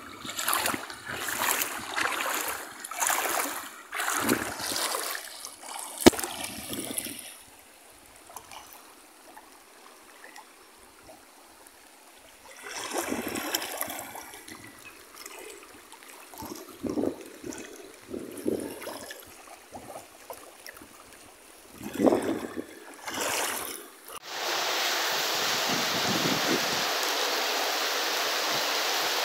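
Floodwater of a swollen creek rushing through flooded brush, coming in uneven rushes with a quieter lull in the middle. About 24 seconds in it gives way to the steady hiss of heavy rain pouring onto flooded ground.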